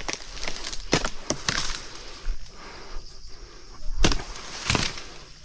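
Oil palm fronds being cut with a dodos, a long-poled pruning chisel: irregular sharp chops and knocks among rustling leaves, the clearest about four seconds in and near the end.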